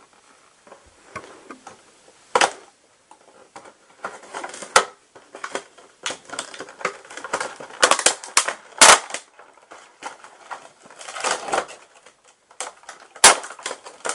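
Stiff clear plastic clamshell packaging crackling and crinkling as it is pulled apart by hand, with several sharp loud snaps and cracks among irregular clicks.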